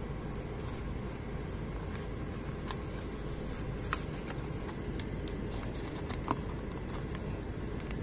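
Steady low hum of a car cabin with a few faint clicks and taps of a Zippo butane lighter insert's cardboard-and-plastic box being handled as the insert is worked out of it.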